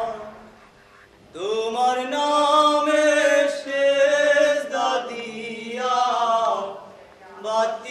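A man chanting unaccompanied in long, held notes, in phrases of a few seconds with short breaks between them.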